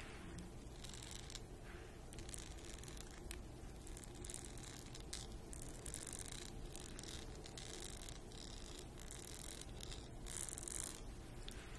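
Long fingernails scratching over the textured, studded handle of a makeup brush in many short, dry scratching strokes.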